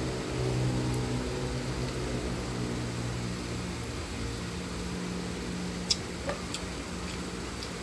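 Steady hum and hiss of a window air conditioner running, with a sharp click about six seconds in and a few faint ticks after it.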